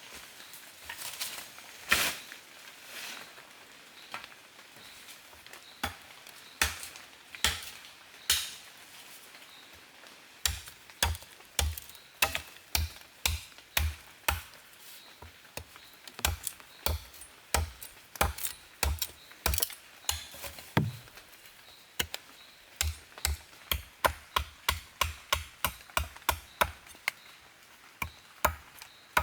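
Repeated chopping strikes of a blade into wood. A few scattered cuts come first, then a steady run of about two strokes a second from about ten seconds in, quickening to about three a second near the end.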